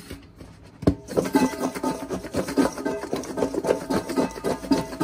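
Shredded cabbage and seasoning being shaken inside two stainless steel bowls clamped rim to rim: a knock about a second in, then a fast continuous rattling and scraping with metallic ringing as the salad is tossed to mix.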